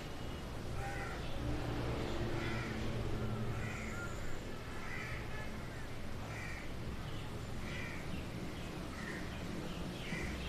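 Crows cawing repeatedly, short calls about one a second, over a low steady hum.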